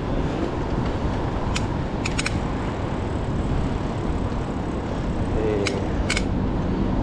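Steady rush of wind and riding noise on the action camera's microphone while pedalling a mountain bike, with a few sharp metallic clicks and rattles from the bicycle.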